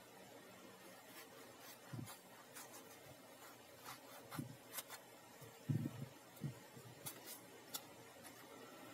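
Small scissors snipping through paper covered in clear tape: a scattering of faint cuts and paper rustles, with a soft low thump about six seconds in.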